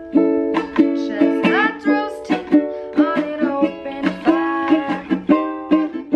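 Ukulele strummed in steady chords, with a woman's voice singing along.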